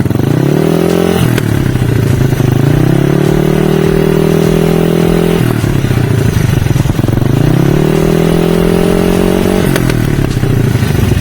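Yamaha 135LC's single-cylinder four-stroke engine running through a Spec 57 exhaust: three times its pitch climbs and holds, then drops suddenly, about a second in, midway and near the end.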